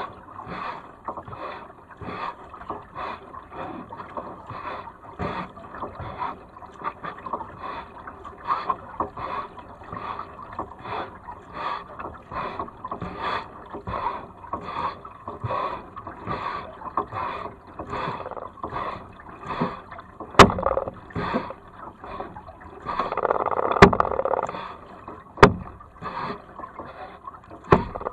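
Double-bladed kayak paddle strokes, the blades dipping and splashing into the water in an even rhythm of about three strokes every two seconds. Near the end, three sharp knocks stand out as the loudest sounds, with a short louder splash between the first two.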